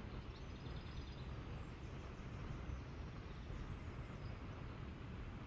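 Steady low rumble of wind and road noise on a moving camera, with faint birds chirping in the first two seconds and again about four seconds in.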